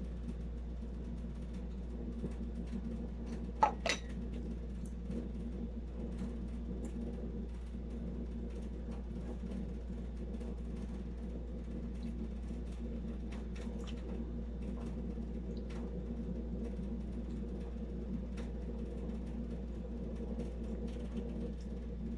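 Air conditioner running with a steady, noisy hum, under faint scattered clicks of eating by hand and chewing. A short, sharp sound stands out about four seconds in.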